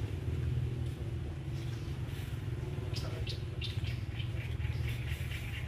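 A steady low engine rumble, like a motor vehicle running close by. In the second half, a run of short high chirps or squeaks comes in over it.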